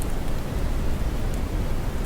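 Steady brown noise, a deep, even rushing hiss weighted heavily toward the low end, with a faint high crackle tick near the start.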